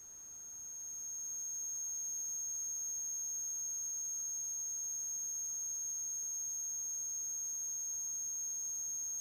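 A steady high-pitched electronic whine, one unbroken tone over faint hiss, growing a little louder over the first second or two and then holding level.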